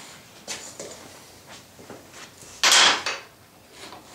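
Pipe clamps and wooden handscrews being handled and adjusted on a clamped-up wooden box, giving light knocks and clicks. About two and a half seconds in comes one louder, longer scrape-like noise that lasts under half a second.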